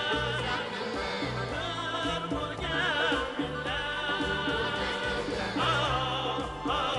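Two male voices singing an Uzbek folk song with strong vibrato, accompanied by a doira frame drum, a long-necked lute and a small folk ensemble.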